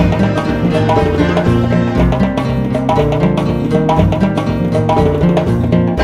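Background music: a plucked-string tune over a steady drum beat.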